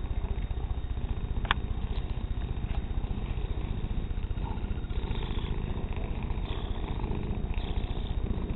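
Domestic cat purring steadily as it is stroked, a fast even rumble. A single sharp click about a second and a half in.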